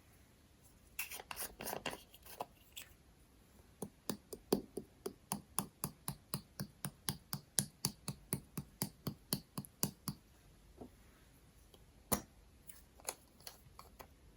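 Slime being pressed and worked by hand, giving a run of sharp clicking pops about four a second for around six seconds. A cluster of crackles comes near the start and a few scattered clicks near the end.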